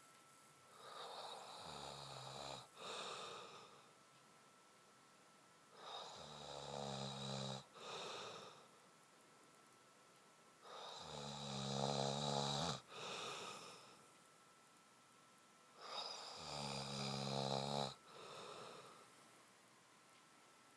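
A man snoring deeply, four snores about five seconds apart, each a long rattling snore broken by a brief gap into a shorter second part; the later two are the loudest.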